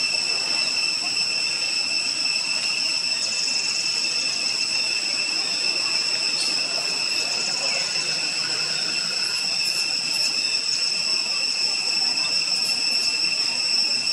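Steady chorus of forest insects: a continuous high-pitched buzzing at two pitches that holds level without a break.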